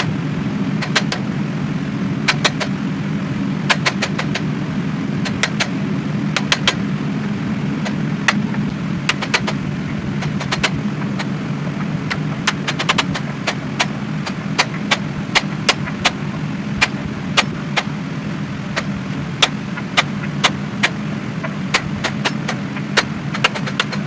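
Hammer blows on hot steel at the anvil: sharp strikes, scattered and sometimes coming in runs of about two a second, over a steady low roar.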